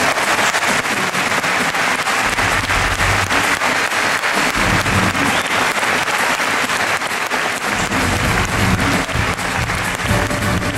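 Audience applauding, many hands clapping together. Music comes back in underneath in the last few seconds.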